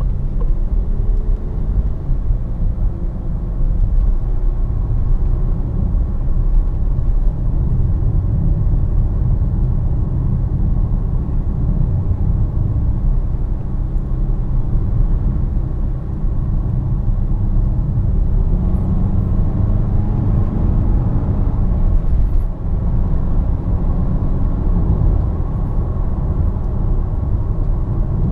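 Four-cylinder turbodiesel of a DS7 Crossback 2.0 BlueHDi 180 and its tyre and road noise, heard from inside the cabin as the car gathers speed from about 40 to 80 km/h. Under a steady low rumble, the engine note rises in a few stretches.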